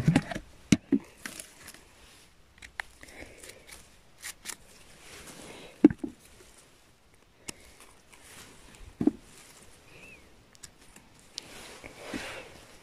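Handling noise of chanterelles being picked by hand from moss and low forest-floor plants: soft rustling of leaves and moss with irregular sharp clicks and knocks, the loudest about six and nine seconds in.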